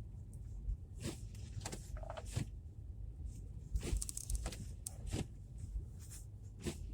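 Low, steady rumble of a car interior, broken by scattered knocks and clicks, several close together about four seconds in.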